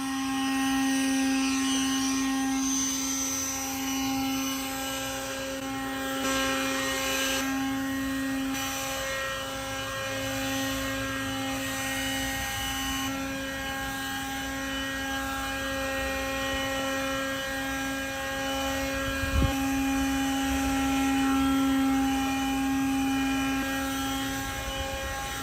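Chainsaw motor running steadily at one constant high pitch, with a single thump about 19 seconds in.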